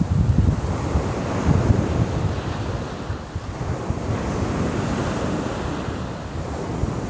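Black Sea surf washing onto a pebble shore, with wind rumbling on the microphone, strongest in the first couple of seconds.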